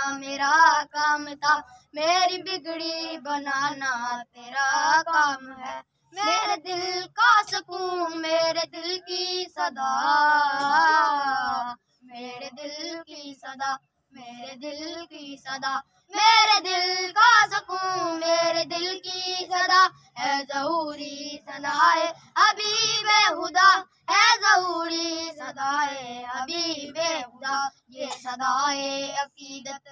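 A high solo voice singing a naat in Urdu, unaccompanied. The phrases last a few seconds each, with short breaks for breath, and the long notes waver in ornaments.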